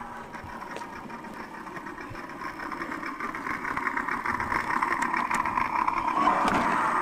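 Toy radio-controlled monster truck's motor running with a high, fast buzz, growing louder over the last few seconds as the truck comes up close.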